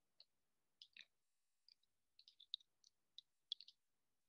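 Near silence with faint, scattered soft clicks, about a dozen short ticks spread irregularly through the pause.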